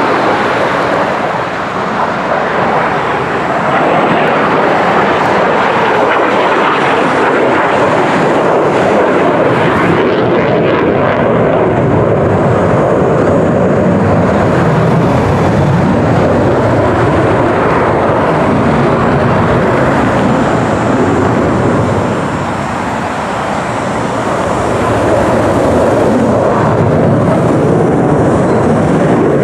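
F-35 fighter's single Pratt & Whitney F135 afterburning jet engine during a high-power display pass, loud and steady, easing briefly twice as the jet turns.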